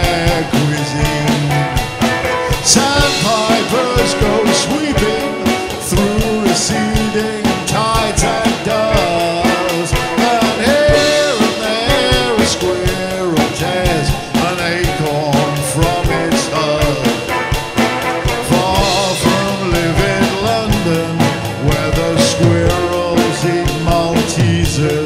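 Band music: electric guitar and drums playing steadily, with a man singing.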